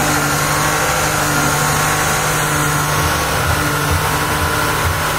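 BMW E34 5 Series engine held at steady revs during a burnout, its rear tyres spinning on the tarmac and giving a continuous hiss over the engine note.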